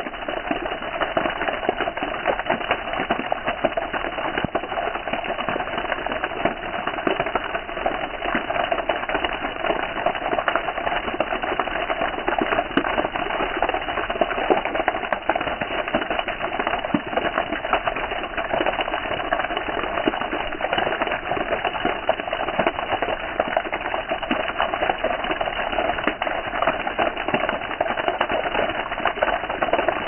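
Steady rain falling, a dense patter of many small drop impacts at an even level.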